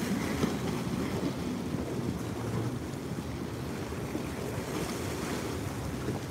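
Small waves splashing and washing against the rock riprap of a seawall, with wind buffeting the microphone.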